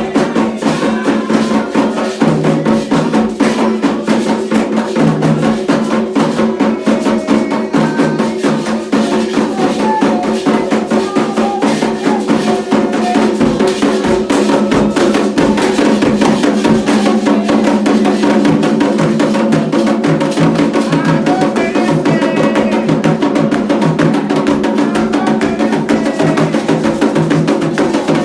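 Candomblé ritual drumming: atabaque hand drums beaten in a fast, steady rhythm, with sharp wooden-sounding clicks and sustained tones running beneath.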